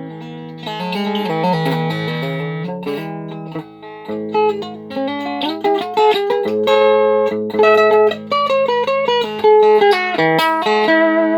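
Evancho Solidbody Strummer, a solid-body dulcimer-style string instrument, picked note by note over a steady low drone note. A softer phrase opens, then from about four seconds in the melody notes come louder and quicker.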